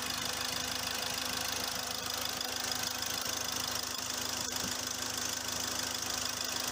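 Hyundai Verna's four-cylinder common-rail diesel engine idling steadily at an even level, running normally again after its ECM fault was repaired.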